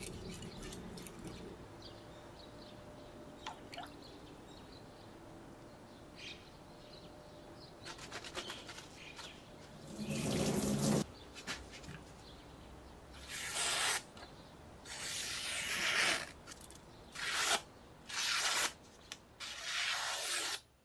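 Damascus kitchen knife scraping quietly on a wet whetstone, then a loud rush of water spray lasting about a second as the blade is rinsed. Several more loud hissing swishes follow in the second half as the blade is cleaned and drawn through paper to test the edge.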